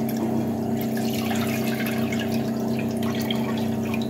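Water poured in one steady stream from a steel bowl into a kadhai, splashing as the pan fills.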